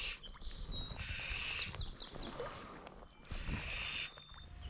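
Small birds chirping a few short times, faint, over a low steady outdoor rumble.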